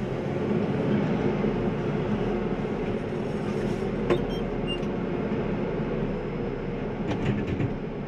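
Farm loader's diesel engine running steadily, heard from inside the cab as it lowers a round straw bale into a straw chopper; a single sharp click about four seconds in.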